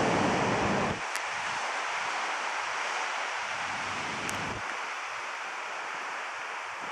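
Pacific Ocean surf, a steady rushing wash of waves, with wind buffeting the microphone in low gusts, strongest in the first second.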